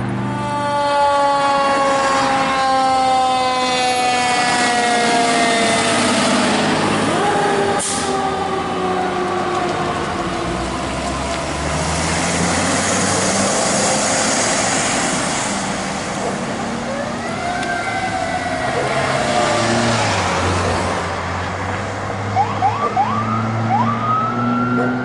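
Emergency vehicle sirens over engine noise. A falling siren tone runs over the first several seconds, then a Sacramento Fire Department Ford ambulance's electronic siren sweeps up and down as it pulls away, with quick rising yelps near the end.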